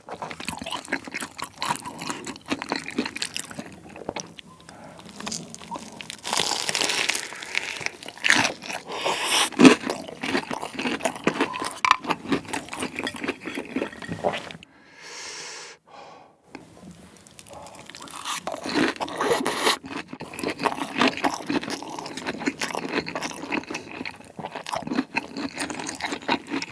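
Close-miked crunching and chewing of a crispy battered Korean corn dog, a dense run of crackly bites that eases off briefly about halfway through.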